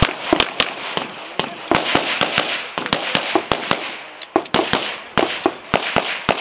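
Pistol shots fired in rapid, uneven strings during a USPSA stage, about two to four sharp cracks a second with short pauses between strings.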